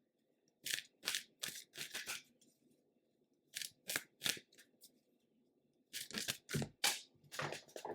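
Tarot cards from a Lightseers deck being handled: a string of short, crisp papery swishes and snaps in irregular clusters, as cards are shuffled and drawn.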